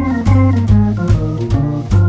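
Background music: an organ-led instrumental with a walking bass line and changing chords.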